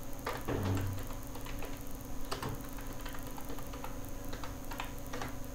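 Computer keyboard keys clicking in irregular runs of keystrokes as text is typed.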